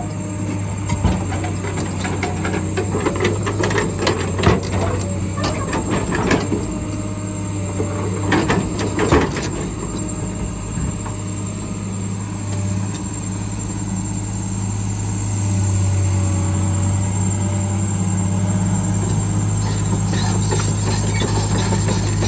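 Heavy earthmoving machine's diesel engine running steadily, with scattered clanks and knocks of metal and stone during the first ten seconds as the marble block is handled. The engine gets louder about fifteen seconds in.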